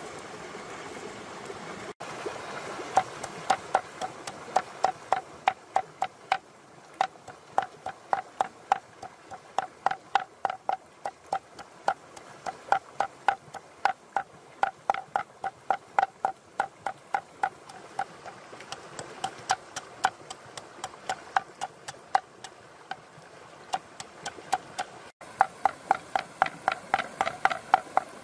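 Steady rhythmic knocking of hard strikes, about three to four a second, beginning about three seconds in and broken by a few short pauses.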